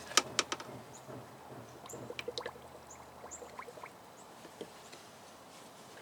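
Turkey baster sucking old brake fluid out of a clutch master cylinder reservoir: a few sharp plastic clicks at the start, then faint liquid slurps and small ticks.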